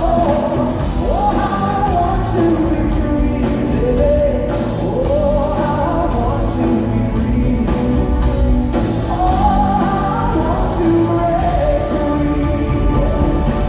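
Live rock band playing in an arena, heard from the audience, with a male lead singer singing the melody over the full band.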